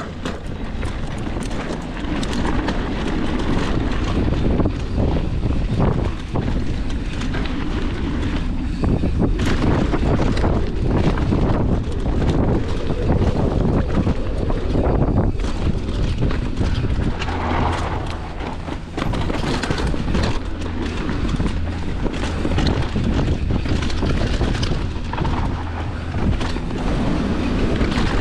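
Enduro mountain bike descending a rough, rocky trail at race speed: a continuous clatter of tyres over rock and dirt and the bike's parts rattling over the bumps, with wind rumble on the microphone.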